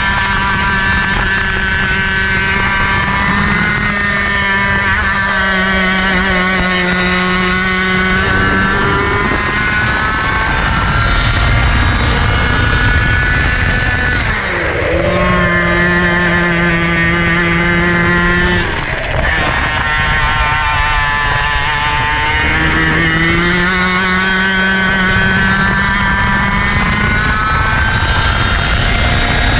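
IAME KA100 100cc two-stroke kart engine at racing speed, its pitch climbing steadily on each straight and dropping sharply off throttle under braking for the corners, several times over.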